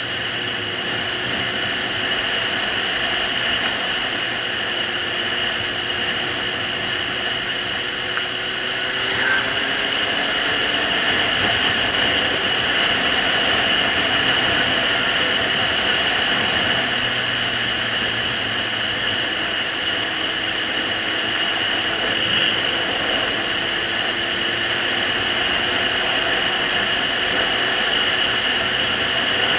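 Suzuki GSR750's inline-four engine running under way, mostly covered by steady wind rush, with the engine note climbing gently twice as the bike speeds up.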